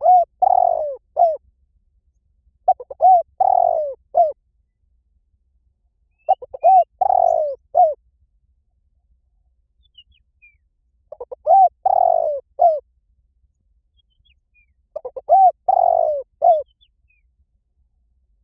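Spotted dove cooing: five phrases, each a short run of coos with a longer, rolling middle note, repeated every three to five seconds.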